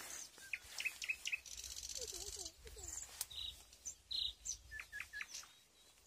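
Several songbirds singing and calling: short high chirps and whistles throughout, with a fast buzzing trill from about one and a half to two and a half seconds in.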